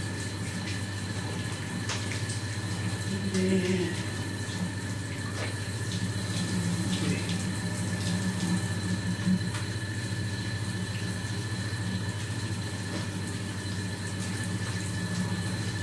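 Water running steadily from a tap, echoing in a small tiled bathroom, over a constant low hum. A low voice murmurs briefly about three seconds in and again midway.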